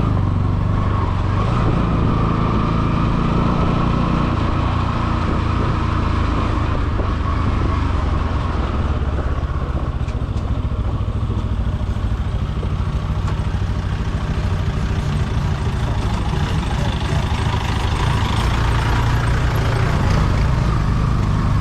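Motorcycle engine running steadily as the bike is ridden, its pitch shifting a little now and then, over a continuous rush of noise.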